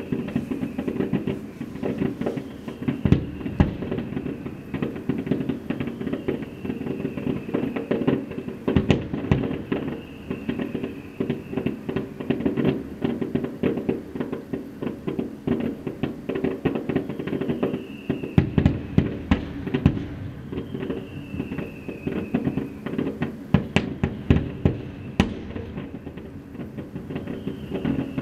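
Fireworks display: a dense, irregular string of shell bursts and crackle, many sharp bangs every second.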